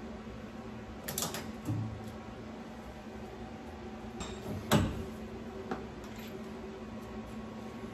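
A few short metal clinks and knocks as a small metal workpiece is handled in a milling-machine vise, the loudest a little under five seconds in. A steady low hum runs underneath.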